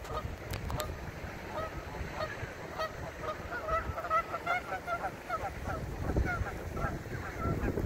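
A flock of Canada geese honking: many short, overlapping calls, coming thickest in the middle.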